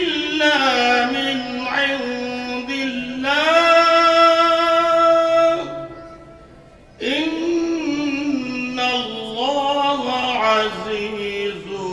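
A man reciting the Quran in melodic tajweed style (qirat) into a microphone, holding long, drawn-out notes with wavering ornaments. He breaks off for a breath about six seconds in and resumes. These are the closing verses of the recitation.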